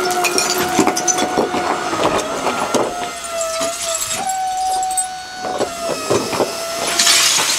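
MultiOne articulated mini loader running with a steady whine that steps in pitch a few times as it tips a bucket of broken bricks into a truck bed. Rubble clatters and knocks throughout, with a louder rush of falling debris near the end.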